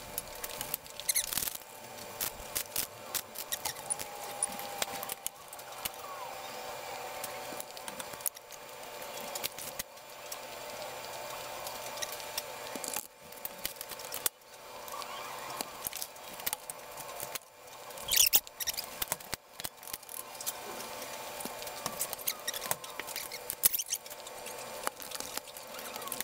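Scattered soft clicks, taps and scrapes from portioning pizza dough by hand: a bench scraper cutting dough on a stainless steel scale and dough balls set down in a plastic tray, with a sharper click about 18 seconds in, over a faint steady hum.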